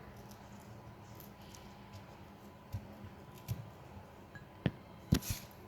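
Quiet handling of a red onion being peeled on a cutting board: a few light clicks and taps, the sharpest two a little before the end.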